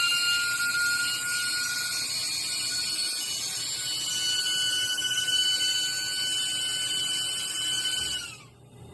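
High-speed rotary tool whining steadily with a hiss, then spinning down and stopping about eight seconds in.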